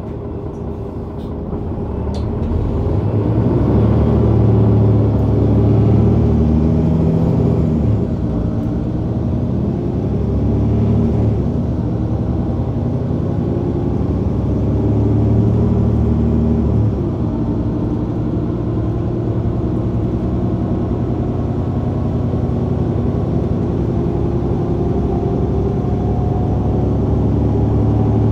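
Mercedes-Benz O530 Citaro bus engine, heard from just above it, pulling the bus up through the gears of its Voith automatic gearbox. The engine note rises and drops back three times as the gearbox shifts up, then runs steadily at cruising speed with a slight rise near the end.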